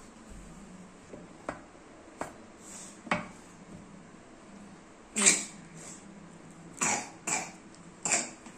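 Cardboard phone box being opened by hand: a few light knocks, then from about five seconds in several short, sharp rustles and scrapes of card and paper as the lid comes off and the sleeve inside is lifted out.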